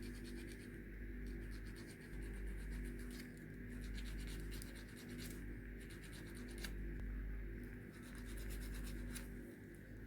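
Quick scratching, rubbing strokes worked against a wooden pool cue, coming in runs broken by short pauses, over a faint steady hum.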